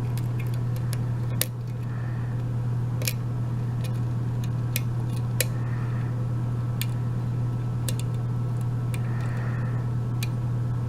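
Sharp, irregular metallic clicks of a lock pick and tension wrench working the pin stacks of a Sargent mortise cylinder, about ten over the stretch, over a steady low hum.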